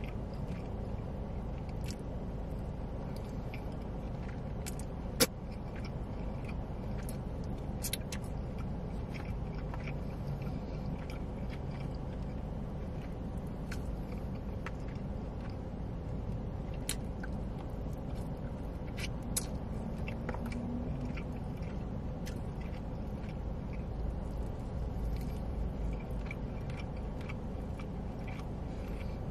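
Close-up chewing and biting while eating barbecue ribs, with small wet clicks scattered through, over a steady low rumble. A single sharp click stands out about five seconds in.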